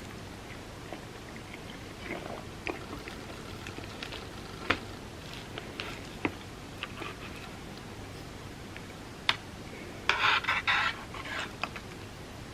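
Close-miked eating sounds: quiet chewing and mouth sounds with a few sharp clicks, then a dense crackling burst about ten seconds in.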